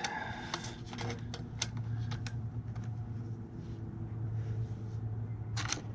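Steady low hum of a running fan, with scattered light clicks and knocks of tools being handled against metal and a sharper knock near the end.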